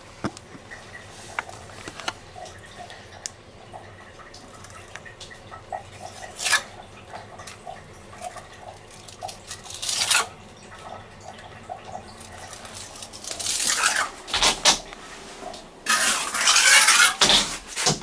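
Small metal hand trowel working wet self-levelling compound: light clinks and short scrapes of the blade on the wet slab and its edges, with longer, louder scraping near the end.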